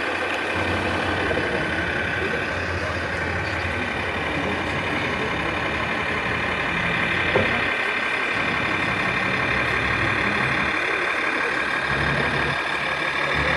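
Scale RC Mercedes Arocs 8x8 dump truck driving downhill under a load of sand, a steady truck-engine sound running throughout. There is one short click about halfway through.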